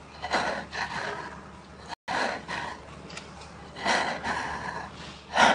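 A person breathing hard in short gasps, one breath every half second to a second, with a louder gasp near the end.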